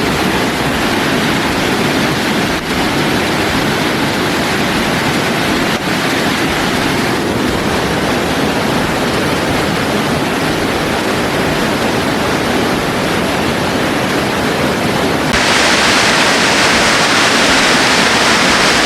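Loud, steady rush of stream water running over a trail of small falls and natural pools. About fifteen seconds in it suddenly gets louder and more hissy.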